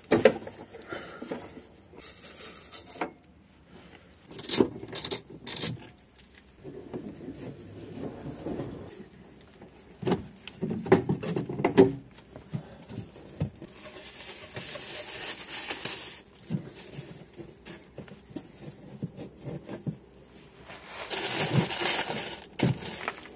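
Hands and tools working at fittings on a car's underbody: irregular clicks, knocks and scrapes. A plastic bag rustles near the end.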